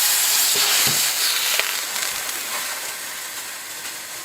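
Water steaming and hissing on a hot wood-stove top. The hiss is loud at first and slowly eases off.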